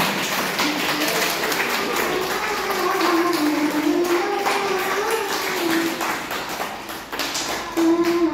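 A young girl singing into a handheld microphone, holding long notes, with many taps and knocks breaking in across the song.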